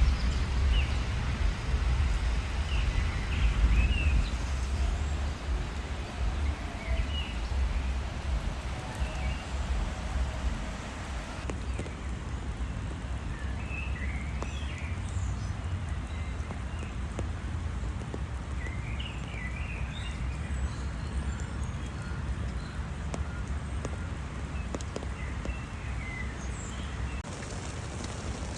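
Steady rain hiss over a low rumble, heavier in the first third, with short bird chirps now and then.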